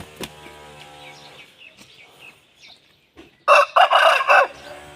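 Aseel rooster crowing once, loud and close, starting about three and a half seconds in and lasting about a second. Faint small-bird chirps sound before it.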